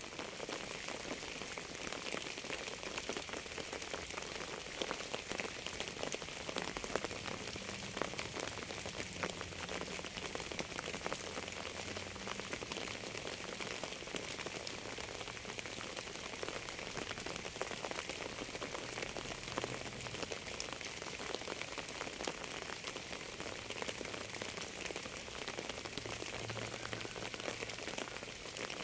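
Steady rain falling, with many separate drop hits clicking through the even hiss.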